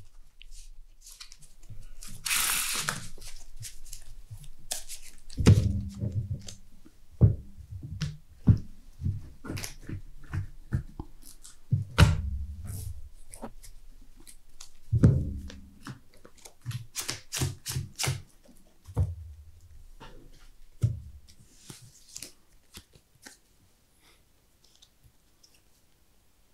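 A deck of trading cards being shuffled by hand: a rustling riffle of cards about two seconds in, then a long run of quick clicks and soft thumps as the deck is shuffled, squared and set down on the table, easing off near the end.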